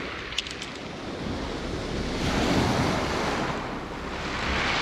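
Black Sea waves washing in on the shore, the surf hiss swelling twice, about two seconds in and again near the end, with wind buffeting the microphone. A few light clicks just after the start.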